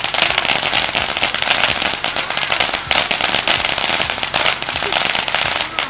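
Consumer ground fountain firework spraying and crackling, a dense continuous stream of fast pops and crackles.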